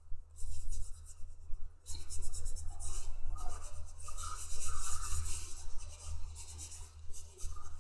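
Powder eye shadow rubbed by hand across the waxy surface of an encaustic painting panel: a dry, scratchy rubbing in uneven strokes, with a short pause about two seconds in.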